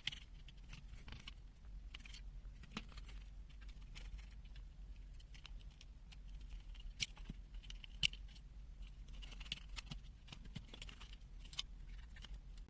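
Faint scattered clicks and soft scraping of plastic as the multimeter's case is handled and opened.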